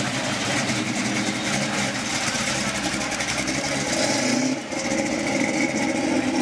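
The engine of a vintage-style hot-rod pickup truck runs at a slow, steady crawl as the truck drives past and pulls away, with a short break in the sound a little past the middle.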